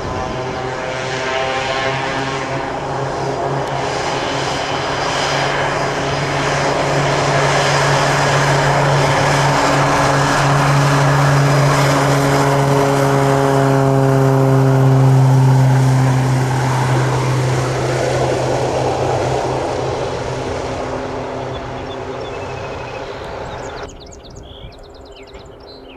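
Thrush 510G agricultural plane's GE H80 turboprop at takeoff power on its takeoff run: a steady low propeller drone that grows louder as the plane passes close, then fades as it climbs away. The level drops suddenly about 24 seconds in.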